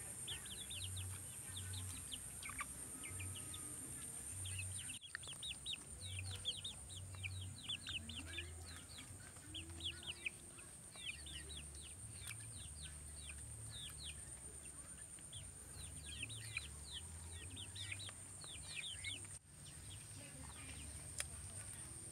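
Birds chirping in quick bursts of short, high, falling notes, over a steady high-pitched hum.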